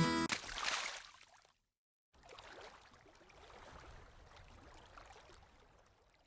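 Strummed acoustic guitar music fading out, then after a brief silence a faint steady rush of flowing river water.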